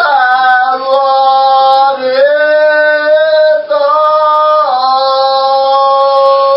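A high voice singing long held notes without words, moving to a new note every second or two.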